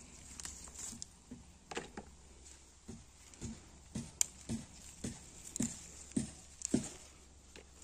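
Footsteps on dry garden soil, about two steps a second from about three seconds in, with leaves brushing and rustling against the legs.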